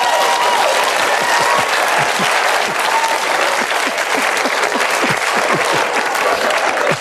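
Studio audience applauding steadily, with some laughter mixed in.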